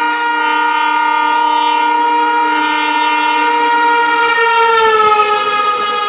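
Indian Railways electric locomotive sounding its horn in one long continuous chord as the express approaches at speed. About three-quarters of the way through, the pitch drops as the locomotive passes, and the rumble of wheels on rail rises under it.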